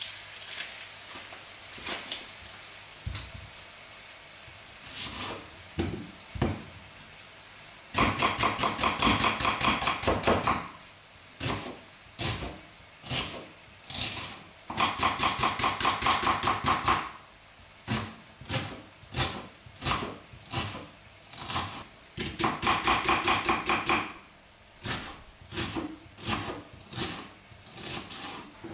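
Kitchen knife chopping onion on a wooden chopping board. A few scattered knocks come first, as the onion is peeled and cut. Then come three runs of rapid chopping, each two or three seconds long, with slower single cuts between them.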